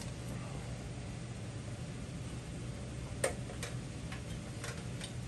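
Faint, scattered metal clicks of bolts being handled and fitted through a stamped-steel motorcycle frame, the sharpest about three seconds in, over a steady low hum.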